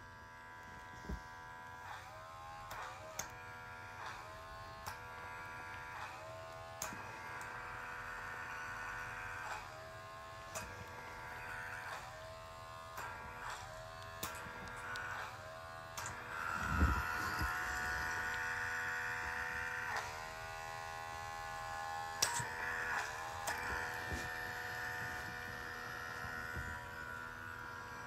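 Small battery-powered facial pore vacuum (blackhead suction device) running with a steady buzzing whine. Its pitch dips and recovers again and again as the nozzle is pressed to and lifted from the skin. There are sharp little clicks here and there and one louder bump about halfway through.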